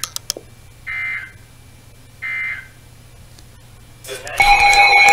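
NOAA Weather Radio EAS (SAME) header data bursts: two short buzzy digital squawks about a second and a half apart, signalling an incoming alert. About four seconds in, weather radio receivers' alert alarms set off by the header start together: a loud, steady, shrill blend of several tones.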